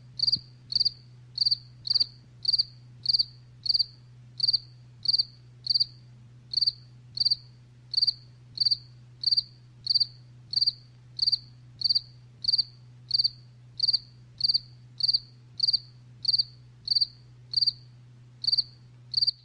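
Cricket chirping: short, high chirps repeated evenly about one and a half times a second, over a faint steady low hum.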